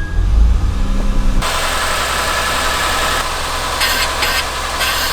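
Acura TL Type-S V6 engine running, being run up to check for rubbing noises after brake and suspension work. About a second and a half in, a loud steady hiss abruptly joins the engine sound and covers it.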